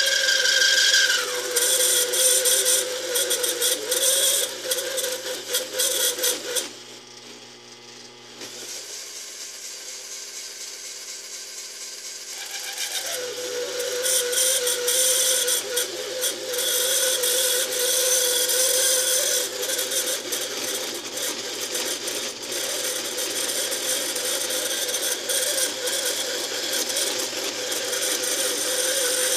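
Taig lathe parting off a steel bar with a spring parting-off tool: the spindle runs under a heavy cut with a harsh, rattling cutting noise. The cutting noise drops away for about six seconds partway through while the lathe keeps turning, then builds back up.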